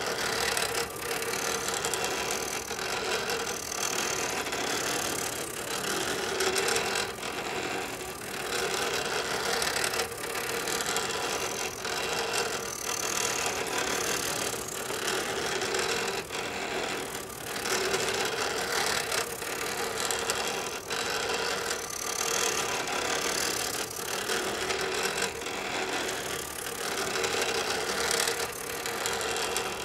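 HP7470A pen plotter drawing curves, its motors driving the pen carriage and paper: a continuous mechanical whir that swells and dips in loudness, with frequent short clicks.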